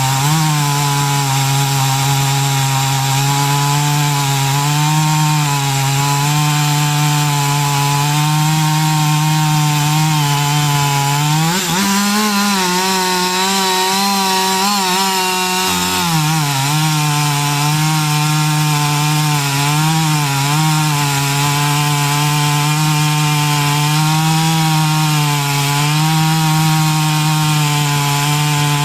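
Chainsaw running steadily while cutting through wood. About twelve seconds in, its engine pitch rises for a few seconds, then settles back to the lower working pitch.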